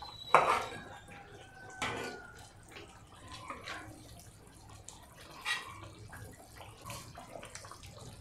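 A spoon serving thick mole from a glazed clay cazuela onto a plate: a few scrapes and knocks against the pot and wet plops of sauce, the loudest about half a second in.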